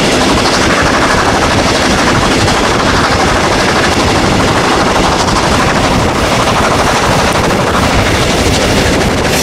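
DR class 41 two-cylinder steam locomotive 41 1144 working hard up a gradient, heard from a coach behind it: a steady, loud, rapid beat of exhaust chuffs.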